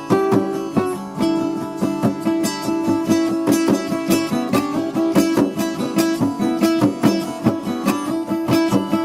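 Acoustic guitars playing an instrumental jam: a quick, even run of picked or strummed notes over held chords.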